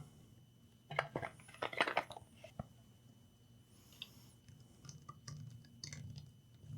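Small hard objects being handled and set down on a workbench: a quick cluster of clattering knocks and clinks about a second in, one more click shortly after, then lighter, quieter taps and rustles.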